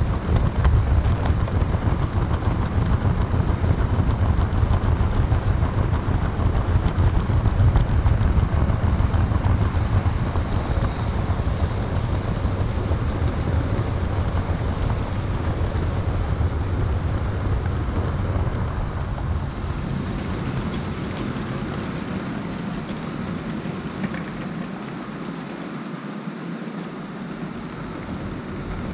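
Model railway train running along the track, heard from on board: a steady rumble of wheels on rail joints and the locomotive's motor. There is a brief faint high squeal about ten seconds in. The rumble grows quieter over the last several seconds as the train slows.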